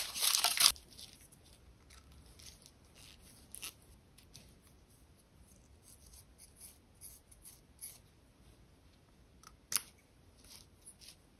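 An alcohol swab packet is torn open with a crinkle and tearing sound in the first second. Then come faint small clicks and rustles of handling a medicine vial and syringe, with one sharper click near the end.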